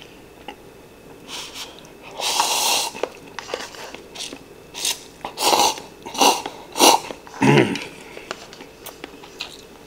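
A person slurping instant cup noodles and chewing. There is one longer slurp about two seconds in, then a run of shorter slurping and chewing sounds.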